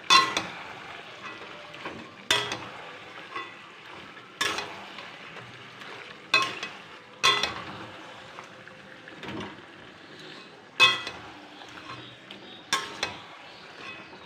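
Metal spatula stirring chicken curry with tomato, capsicum and green chillies in a metal pan: about eight sharp, ringing clanks of spatula on pan, a second or two apart, over a steady sizzle of the food frying.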